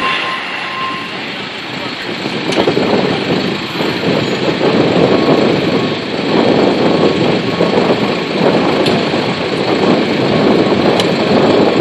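Heavy truck engine running, with a reversing alarm beeping in the first second and faintly again midway.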